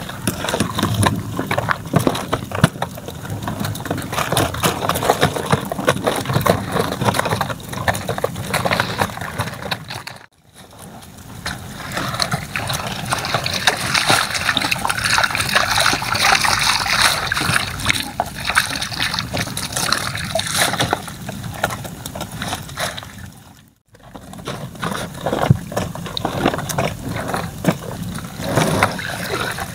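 Water sloshing, splashing and trickling as a wet mesh shrimp-trap net is hauled out of the water and handled, with dense small clicks and patters. The sound cuts out briefly twice.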